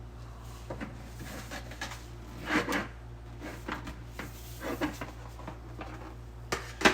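Replica Darth Vader helmet pieces being handled and fitted together, with scattered knocks and clicks; the loudest knock comes near the end.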